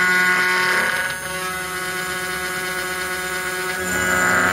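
PWNCNC 1.5 kW water-cooled spindle on a CNC router running with a steady whine while a quarter-inch carbide ball end mill cuts aluminum. The cutting noise swells in the first second and again near the end, a little chatter in the cut.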